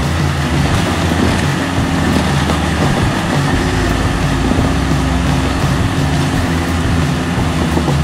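Jeep Cherokee XJ's engine running steadily under load as the Jeep crawls over rock ledges on a trail.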